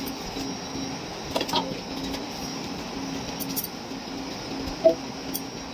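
A steel tumbler scooping chopped raw mango pieces and emptying them into a steel bowl: soft shuffling of the pieces with a few light clinks, the sharpest about five seconds in. A steady low hum runs underneath.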